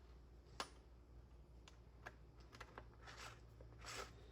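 Faint, scattered light clicks and taps as a small tool is fitted to and worked on a chainsaw's chain tensioner.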